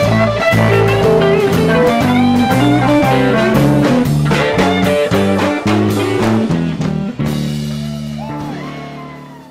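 Live blues band with two electric guitars and drums playing. About seven seconds in the band settles on one held chord, which fades away over the last two seconds.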